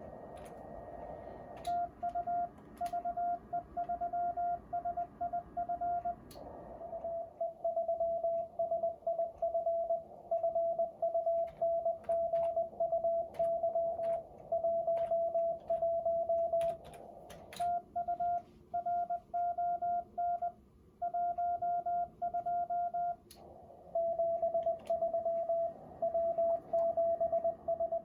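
Medium-speed Morse code (CW) from a Yaesu FTDX-10 transceiver: a single mid-pitched tone beeping on and off in quick dots and dashes as contest exchanges are traded, over a hiss of band noise, with occasional sharp clicks.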